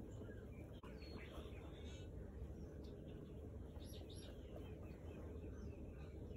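Faint birds chirping over a low, steady background hum.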